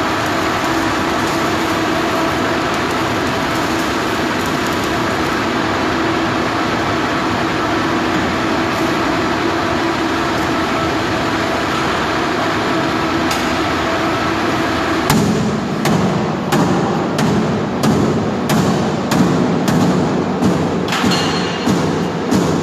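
Steady machine drone with a few held hum tones; about two-thirds of the way through, regular sharp knocks begin, a little more than one a second, over a lower rumble.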